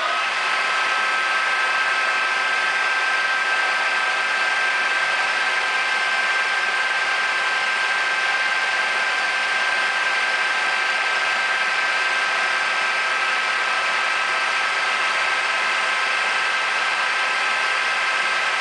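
Acra-Turn geared-head engine lathe running at a steady spindle speed, its headstock and 5 HP three-phase motor giving a steady whine with several held tones over a mechanical hum.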